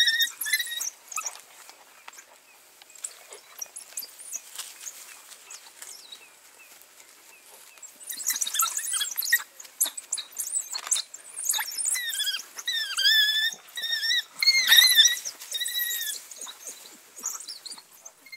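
Pups giving high, wavering squeaky calls in short bursts, busiest near the start and through the second half, over small rustling and pattering sounds.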